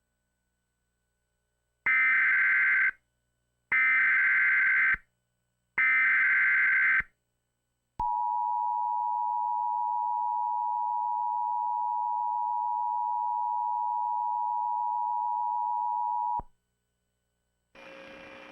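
Emergency Alert System header: three bursts of high SAME data tones, each about a second long, then the EAS attention signal, a steady two-tone alarm held about eight seconds before cutting off. It signals the start of an emergency alert, here a flash flood warning. A faint hum starts near the end.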